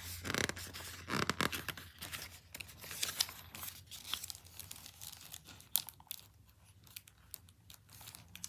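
Paper pages of a large picture book being turned and handled: rustling and crinkling of paper with scattered small taps, busiest in the first few seconds, then quieter, with one sharp tap about six seconds in.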